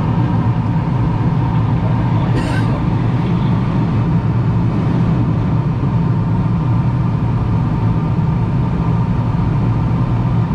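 Steady rush of air and a low engine drone inside a sailplane's cockpit on aerotow behind a tow plane, with one brief click about two and a half seconds in.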